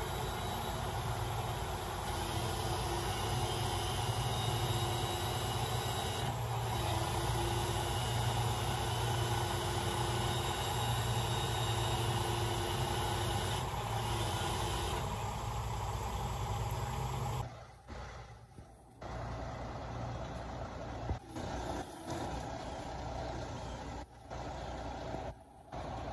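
Heavy truck engine running steadily at a constant speed. About two-thirds of the way through the sound changes abruptly and continues with several brief drops in level.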